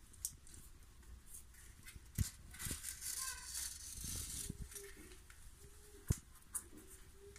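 Self-adhesive PVC sealing strip being pressed and smoothed into a corner joint by hand: soft rustling and crinkling of the plastic film under the fingers, with scattered light clicks and a sharper tap about two seconds in and again about six seconds in.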